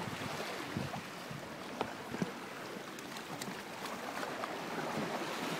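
Sea water washing and lapping against shoreline rocks, a steady rushing noise, with two light knocks about two seconds in.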